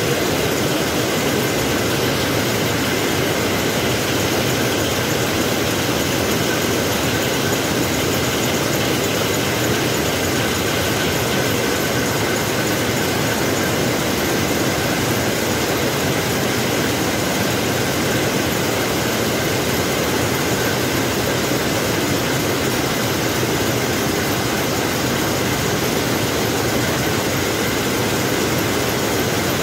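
Several rapier looms running together: a loud, dense, steady mechanical clatter that never lets up.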